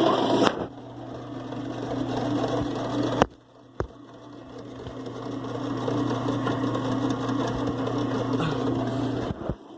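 Kenmore 70 Series direct-drive washing machine running on spin with a steady motor hum. The sound drops off about half a second in. About three seconds in a sharp click and a second click come close together, then the running sound builds back up gradually.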